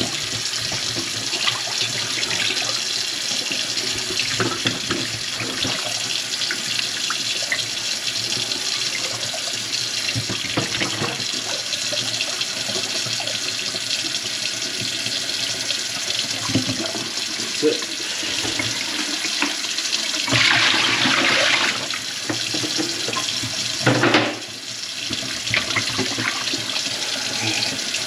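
Kitchen sink faucet running water into the sink, with small clinks throughout. The flow gets louder for a second or two about twenty seconds in, and again briefly just before a short lull.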